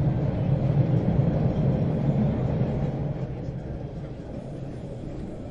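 Train ride noise: a steady low rumble of a train running on the rails, which grows quieter from about halfway through.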